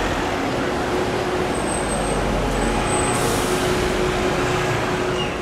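Double-decker bus driving past close by, its engine running steadily over street traffic noise, with a short hiss of air a little after three seconds in.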